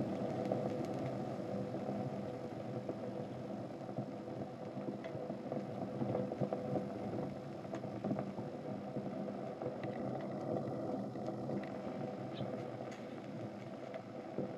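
Steady low rumble with a few faint crackles from small flames burning on sneakers.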